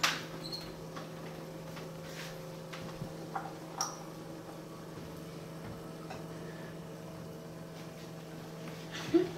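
A wall oven's door clacking open, then a few light metallic ticks and clinks as a muffin tin of eggs is slid off the oven rack, over a steady low hum. A single loud clunk comes near the end.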